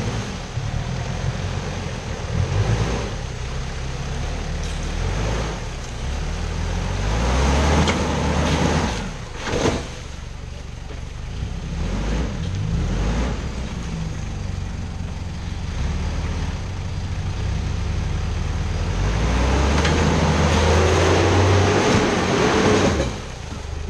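Four-wheel-drive pickup's engine revving hard and easing off again and again as it claws out of a muddy rut, with tyres churning mud and water. The revs build to their longest, loudest push near the end, then drop away.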